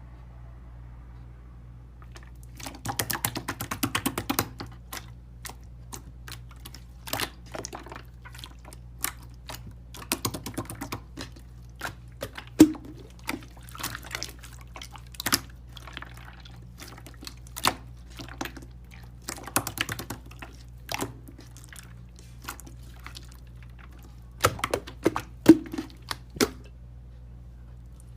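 Slime being squeezed and pressed by hand, giving irregular clusters of sharp, wet crackling and popping clicks. A steady low hum runs underneath.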